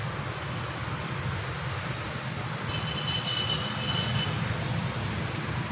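Pressure sprayer misting cucumber vines: a steady hiss of fine spray from the wand, with a low steady hum underneath.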